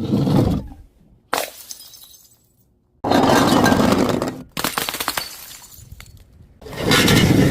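Glass bottles smashing and shattering, about five separate breaks: a short crash at the start, a sharp crack a little over a second in, then three longer crashes full of tinkling, clinking shards.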